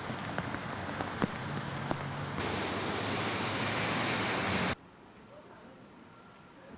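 Steady rushing outdoor noise with a few light clicks in the first two seconds. It grows louder and brighter about two and a half seconds in, then cuts off suddenly just before five seconds, leaving quieter background noise.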